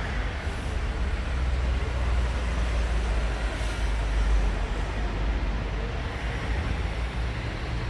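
Steady low rumble of street traffic with no clear separate events.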